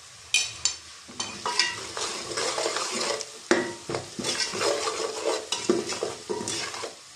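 A steel ladle stirs dry spices into onions frying in hot oil in a metal pot, scraping and clinking against the pot over the frying sizzle. The stirring stops just before the end.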